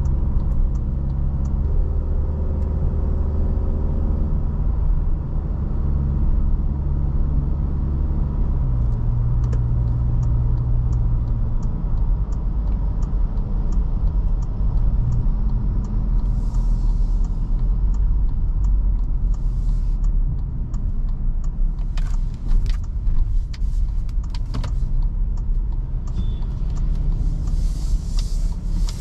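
Toyota Fortuner's 2.7-litre naturally aspirated four-cylinder petrol engine and tyre rumble while driving, the engine note shifting in pitch during the first several seconds and then holding steady. A faint regular ticking runs through the first two-thirds, and a few sharp knocks come near the end.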